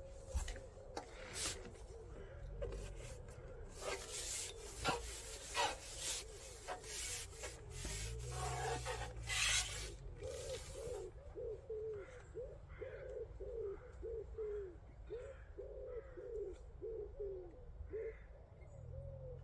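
Carbon pole sections rubbing and scraping as the fishing pole is slid back and forth and shipped out, in irregular bursts through the first half. Over the second half a bird calls with a quick run of short, low, repeated notes.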